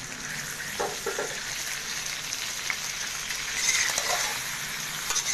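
Chicken and fresh tomatoes sizzling in hot ghee in an iron karahi, with a steady frying hiss. A metal spoon stirs through the pieces and scrapes the pan, most busily about three and a half seconds in.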